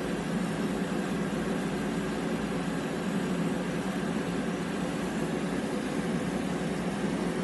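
Laser engraving machine running while it marks a black ceramic plaque: a steady, even mechanical hum with no breaks.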